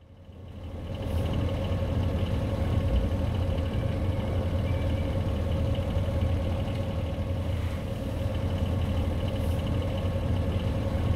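Sailing yacht's inboard diesel engine running steadily under way, a low rumble with a constant whine above it. It fades in over about the first second.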